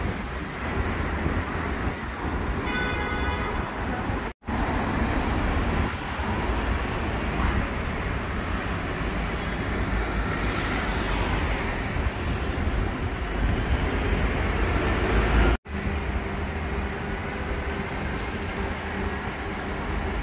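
City street traffic: a steady low rumble of vehicles and road noise, with a short high-pitched whine about two to three seconds in. The sound drops out abruptly twice, at about four seconds and again at about fifteen and a half seconds, where the recording is cut.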